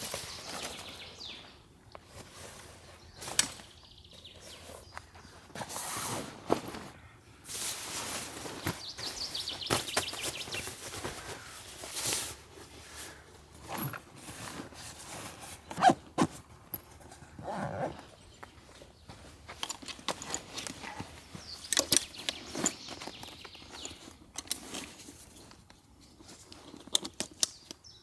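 Camping gear being handled and packed: fabric and bags rustling, with many scattered clicks and knocks, the sharpest about 16 seconds in.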